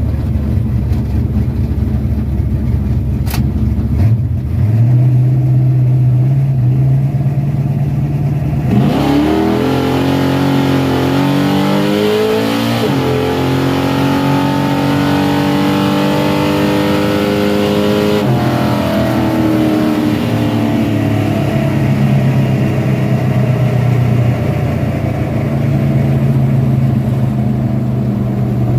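Car engine brought up to steady revs, then accelerating hard about nine seconds in, its pitch climbing, dropping at a gear shift about 13 s in, climbing again, and easing off about 18 s in before settling to steadier running.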